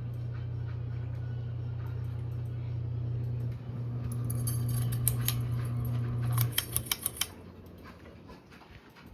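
Mainstays Tri-mount ceiling fan motor humming steadily. About six and a half seconds in, the hum cuts off, followed by a quick run of clicks and rattles, and the fan goes much quieter.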